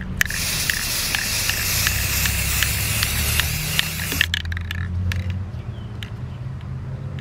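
Aerosol can of spray primer hissing in one steady spray for about four seconds, then cutting off.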